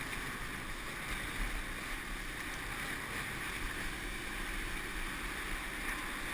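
Steady rush of wind and water as a water skier is towed at speed across a river, the ski hissing over the surface, heard from a helmet-mounted camera with wind on its microphone.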